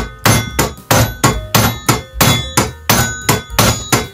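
Mallet tapping steadily on a socket seated in the cup of a Triumph Rotoflex rear hub, about three blows a second, each with a short metallic ring, driving the hub shaft down onto the tight half-shaft splines.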